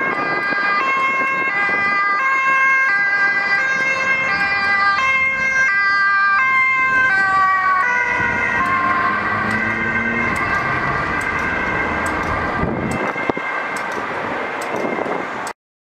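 Dutch ambulance two-tone siren alternating between a high and a low tone about every two-thirds of a second. About eight seconds in, the ambulance passes close by and the pitch drops, with its engine and tyre noise underneath. The sound cuts off abruptly near the end.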